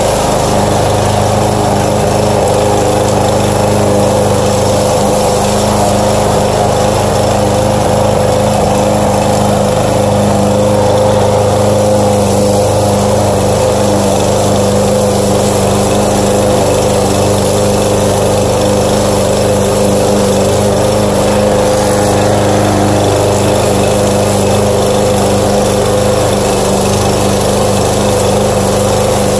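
Walk-behind petrol lawn mower running at a steady speed as it is pushed through grass: an even, unbroken engine hum.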